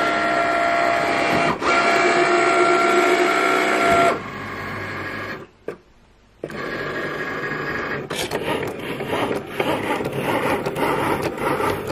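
Cricut Maker cutting machine running, its motors whining steadily as they drive the mat and the blade carriage while the fine point blade cuts light cardstock. About four seconds in the whine drops, stops briefly, then the machine resumes with a rougher whir and rapid clicking.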